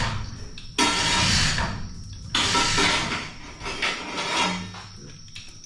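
Tool work on a Rover Mini's engine during removal: two sudden noisy bursts about a second and a half long, the first about a second in and the second about two and a half seconds in, then softer metallic knocks and scrapes.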